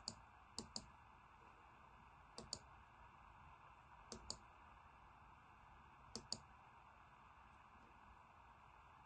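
Computer mouse button clicked in quick pairs, five double-clicks a second or two apart, over faint room hiss.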